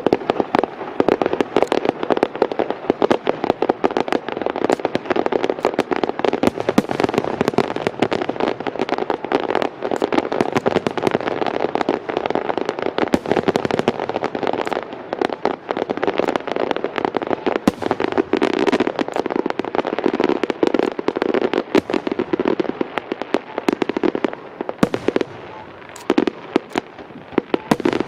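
Aerial fireworks show: a dense, unbroken barrage of shells bursting and crackling, with sharp reports coming many times a second. The barrage thins briefly near the end, leaving a few separate cracks.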